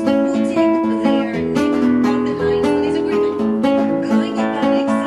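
Instrumental music: a quick run of plucked notes.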